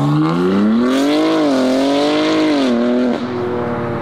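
BMW M3 saloon's straight-six accelerating hard as it pulls away. The revs climb, dip briefly at a gear change, then fall away about three seconds in and settle to a lower steady note.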